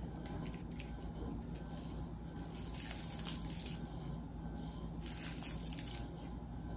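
Faint rustling and light handling as chopped green onion is sprinkled by hand over bowls of soup, with soft hissy rustles about two and a half seconds in and again near five seconds. A low steady hum runs underneath.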